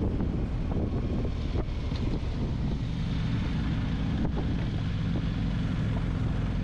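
Adventure motorcycle engine running at low, fairly steady revs, with wind noise on the microphone. A few short knocks from the rough road surface come in the first half.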